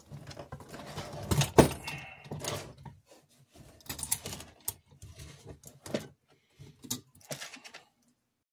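Model train locomotive shell and parts handled and fitted together by hand: a run of clicks and small knocks, the loudest a sharp snap about one and a half seconds in.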